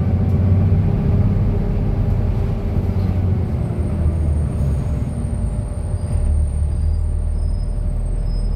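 Cummins diesel engine of a King Long KL6112U1 city bus running steadily, heard from inside the bus as a deep, even drone. A faint thin high whine joins it about three and a half seconds in.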